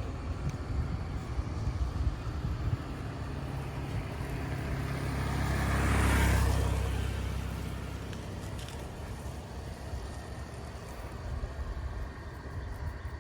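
A motor vehicle passing by, growing louder to a peak about six seconds in and then fading away, over a steady low rumble.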